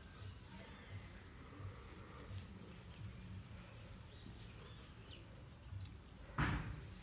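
Faint outdoor ambience with a few birds chirping in the distance, and one short, louder noise about six and a half seconds in.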